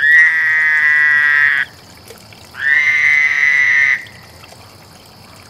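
A male frog calling up close: two long, loud, high trilled calls, each about a second and a half, with a short pause between them.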